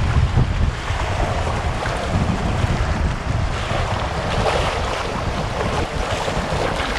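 River water rushing and splashing around the bow of a Gumotex Solar inflatable kayak as it runs a small rapid, with wind rumbling on the microphone.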